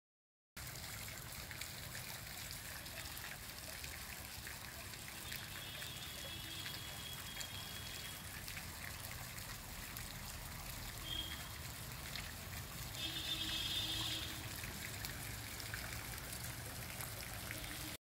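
Water from a revolving fountain nozzle spraying and falling back into the fountain pool, a steady splashing patter that starts about half a second in. Faint high-pitched chirps come through twice.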